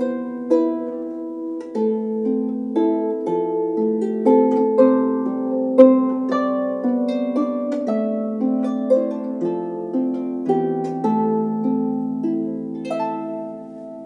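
Harp music: a steady tune of plucked notes that ring on over one another, getting quieter near the end.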